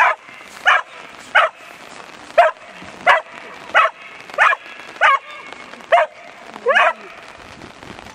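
A dog barking in a steady series, about ten loud barks roughly two-thirds of a second apart; the last one is longer and rises in pitch, and then the barking stops.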